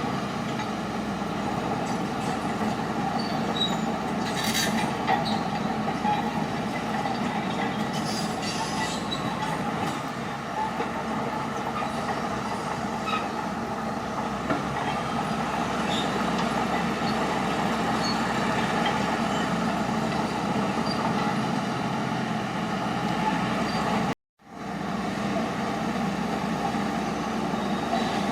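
Crawler bulldozer working: a steady engine drone with the squeal and clank of the steel tracks. The sound cuts out completely for a moment about 24 seconds in.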